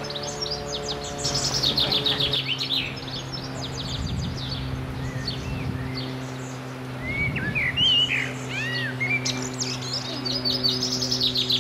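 Small songbirds singing: a rapid high trill about a second in and another near the end, with a few short rising-and-falling chirps in between. A steady low hum runs under the song throughout.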